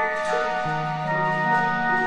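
Background music: a film score of held notes that move slowly from one to the next.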